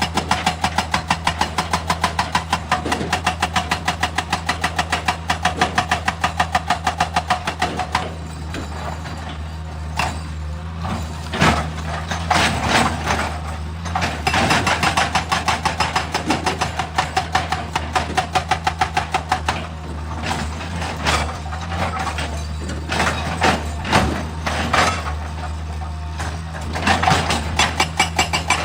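Excavator diesel engine running steadily under a fast, even hammering, typical of a hydraulic rock breaker pounding stone. The hammering stops after about eight seconds and gives way to scattered knocks and clatter, then starts again near the end.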